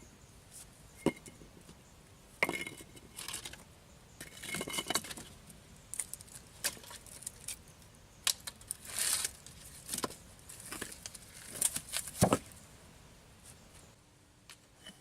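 Irregular scraping, knocking and clinking of hard objects being handled and worked, with sharp knocks about two and a half seconds in and about twelve seconds in.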